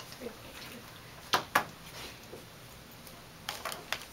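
Dry-erase marker on a whiteboard: two sharp strokes about a second and a half in, then a quick run of short strokes near the end.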